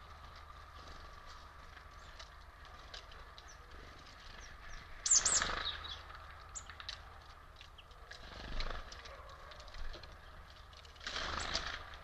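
Great tits at a feeder: two brief flurries of wingbeats, about five seconds in and again near the end, with faint short high chirps and ticks scattered between them over a low steady hum.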